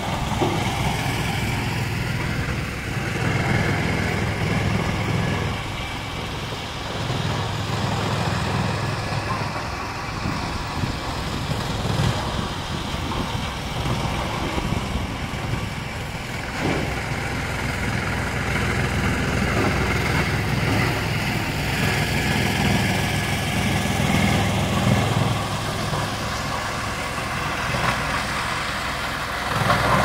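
Drum wood chipper running: a steady heavy machine hum that swells and eases every few seconds.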